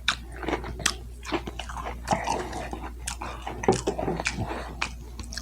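A person chewing and biting food, with irregular sharp mouth clicks.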